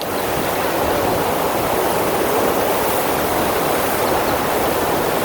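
FlowRider surf machine's pumped sheet of water rushing steadily.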